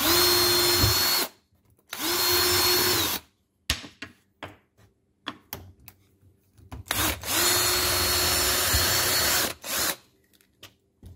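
Power drill with a twist bit boring a screw hole through an MDF block, run in three bursts: about a second, again about a second later, then about two and a half seconds, each spinning up to a steady whine and winding down. Light knocks and taps between the runs.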